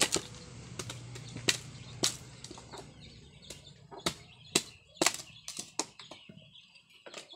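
A machete chopping and splitting dry bamboo: about a dozen sharp cracking strikes at an uneven pace of one to two a second.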